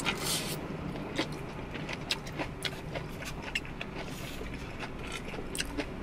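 Close-up eating sounds in a car cabin: short crunchy clicks of chewing fried chicken, a plastic spoon scraping a foam bowl, and sips through a drinking straw, over a steady low hum.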